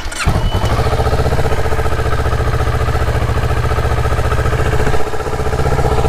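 Kawasaki Z650's parallel-twin engine catching on the starter right at the start and settling into a steady idle, started off a portable jump starter because its battery is flat.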